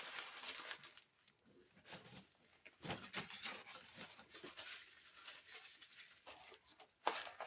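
Faint, irregular close-up eating sounds: chewing and mouth clicks from someone finishing a bite of cheeseburger.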